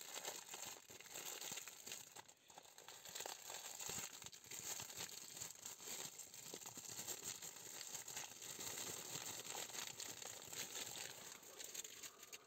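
Thin clear plastic wrapping crinkling and crackling as fingers pick and pull at it to get it open. It is a quiet, continuous run of small crackles.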